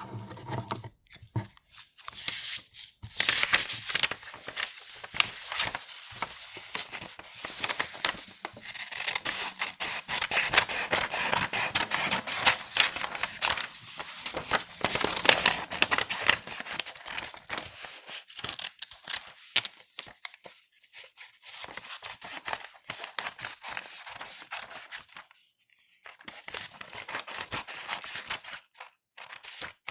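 Scissors cutting through A4 sheets of paper: a long run of crisp snips and papery rustles, with a short pause about three-quarters of the way through.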